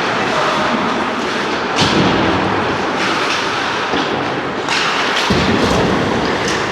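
Ice hockey game play in a rink: a steady din broken by several sharp knocks, about one every second or so from two seconds in, and a heavier thud about five seconds in, typical of sticks, puck and bodies hitting the boards.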